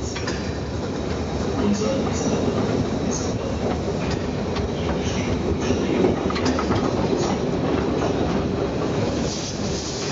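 Harz narrow-gauge steam locomotive 99 236, a 2-10-2 tank engine, running along the track: a steady rumble and clatter of wheels on rail, with short high wheel squeals now and then.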